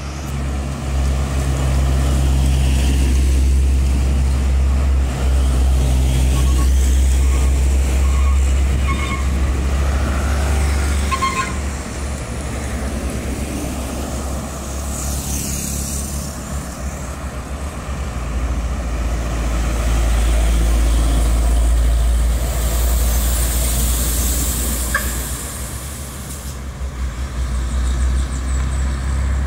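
Heavy diesel trucks, among them Hino tanker trucks, passing close by one after another, their engines a loud low rumble that swells as each truck goes by. A lighter vehicle with a rising and falling hiss passes about midway.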